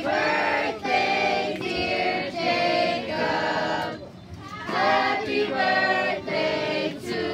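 A group of children and adults singing a birthday song together in held, drawn-out notes, with a short break for breath about four seconds in.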